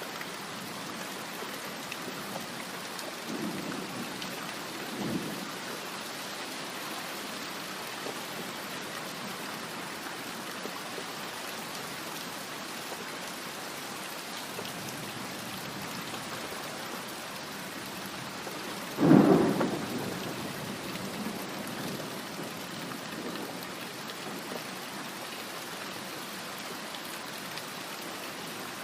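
Thunderstorm: steady rain with two faint rumbles of thunder a few seconds in, then a loud thunderclap about two-thirds of the way through that dies away over a couple of seconds.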